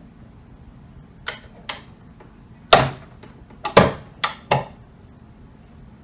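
Manual toggle crimping press being worked: two light clicks as the terminal is set in the dies, then four louder sharp metallic clacks over about two seconds as the lever is pulled down and the ram crimps the terminal.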